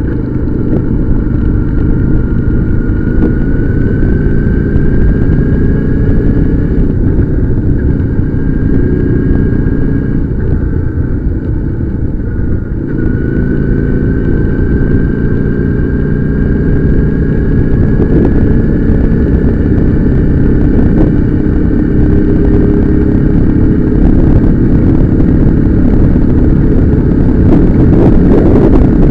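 Motorcycle engine running under way, with a whine that rises slowly as it gathers speed, drops briefly about twelve seconds in, then climbs again.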